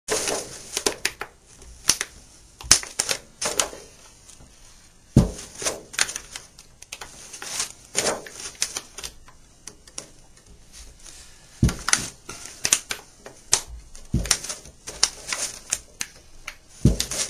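Hands working a skin banjo head down onto the rim and hoops: irregular clicks, taps and rustling, with a few heavier knocks.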